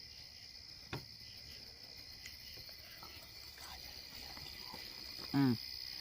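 Crickets chirping steadily in a pulsing high chorus, with one faint click about a second in and a short hummed vocal sound near the end.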